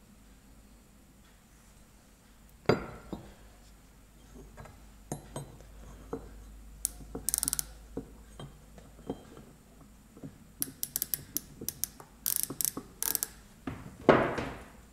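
Steel parallel bars set down and shifted on a wooden bench, with runs of rapid clicking from a micrometer's ratchet stop as it is turned onto the bars. Two louder knocks, one about three seconds in and one near the end.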